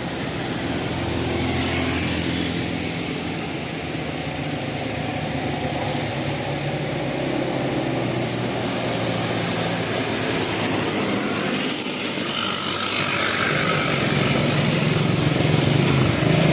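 Road traffic: vehicle engines and tyre noise passing by, getting louder about eight seconds in.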